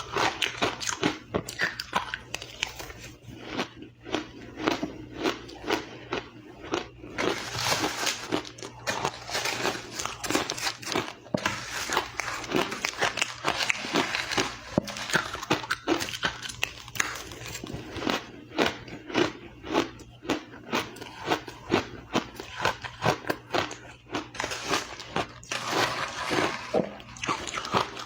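A person biting and chewing ice: a fast, irregular run of sharp crunches that goes on without a break.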